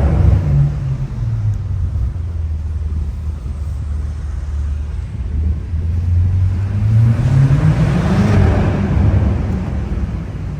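BMW M5 Competition's twin-turbo V8 engine heard from inside the car, running steadily while driving, then rising in pitch under acceleration about seven seconds in and easing off again near the end.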